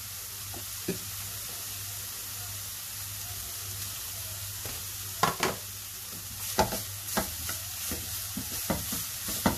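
Ground meat sizzling steadily in a nonstick frying pan as a knob of butter melts into it. From about halfway, a wooden spatula stirs it, with sharp clicks and scrapes against the pan.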